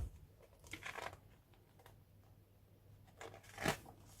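Pages of a hardback book being handled and turned: a soft knock at the start, light paper rustles about a second in, and a louder page rustle near the end.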